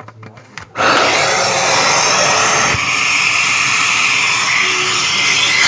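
Central vacuum system starting up after a few clicks, then a loud, steady rush of suction air that cuts off suddenly near the end.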